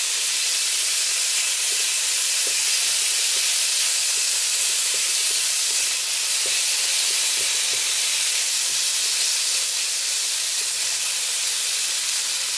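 Chicken pieces sizzling in hot oil in a cast iron wok, a steady loud hiss with steam. The chicken is still a little wet from blanching. Light scrapes and taps of a spatula stirring it are scattered through.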